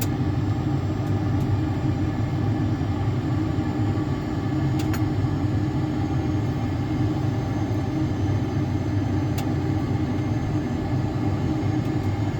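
Steady low rumble of a full-motion Boeing 737-800 flight simulator's cockpit sound, the simulated jet engine and airflow noise in flight, with a couple of faint clicks.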